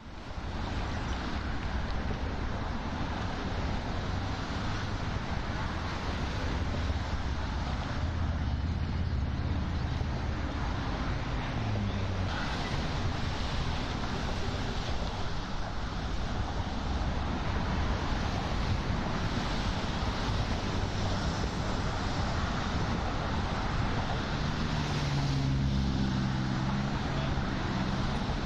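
City street traffic noise: a steady wash of passing cars and engine rumble. An engine's low hum stands out from about 24 to 28 seconds.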